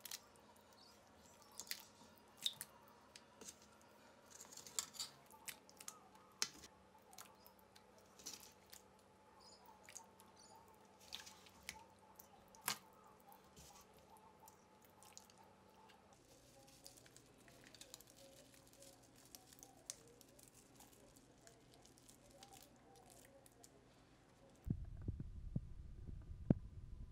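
A metal ladle serves eggplant and broth into a ceramic bowl: faint scattered clinks and wet squishing over a quiet steady room hum. Near the end a low rumbling noise cuts in suddenly.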